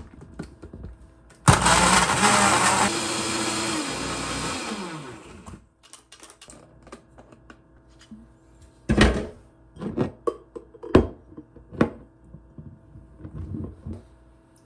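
Personal blender running, blending a drink for about three seconds, then spinning down with a falling hum as the motor stops. A few seconds later come several short knocks and clinks as the blender bottle and a glass mug are handled on the counter.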